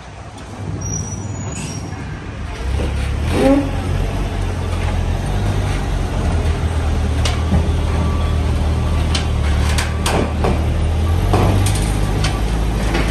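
A heavy vehicle engine running steadily, its low rumble growing stronger about three seconds in, with scattered metal clanks and knocks and a short squeak while crates are unloaded from a box truck by forklift.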